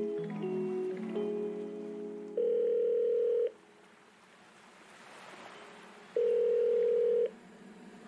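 Background music with two loud, steady electronic beeps of about a second each, one about two and a half seconds in and one about six seconds in, with a quieter hissy stretch between them.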